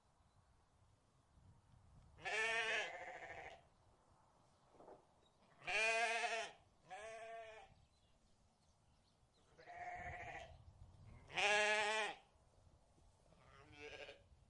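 Rams (male sheep) bleating, about six calls in turn, each a quavering bleat lasting under a second to about a second. The loudest come about two, six and eleven and a half seconds in.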